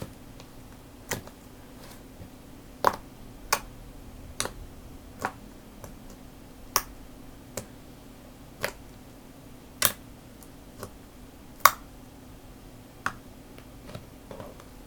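Slime being pressed and poked by hand, giving sharp popping clicks as air pockets burst, about a dozen spaced irregularly around a second apart.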